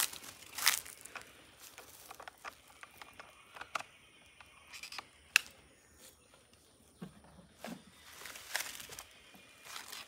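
Dry fallen leaves rustling and crunching while chainsaws and a plastic fuel can are handled on the ground, with scattered clicks and knocks. The loudest is a single sharp click about five seconds in.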